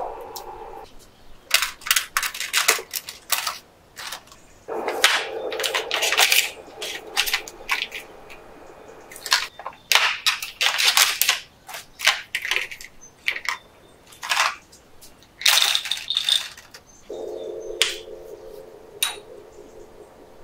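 Packaging and snacks being handled: crackling and crinkling in irregular bursts, with sharp clicks and taps, and a steady low hum near the start and again for the last few seconds.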